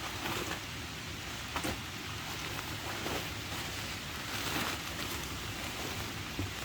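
Steady hiss of rain falling on the surrounding woods and gear, with a few brief sharp taps of drops or handled gear.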